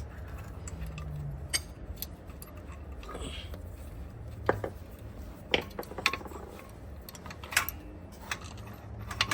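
Scattered sharp metallic clinks of hand tools and sockets being handled while a motor-mount bolt is loosened by hand, about seven in all, over a steady low hum.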